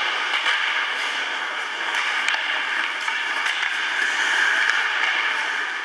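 Ice hockey rink during play: a steady noisy hiss of skates and arena ambience, with a few faint clicks and knocks from sticks and puck.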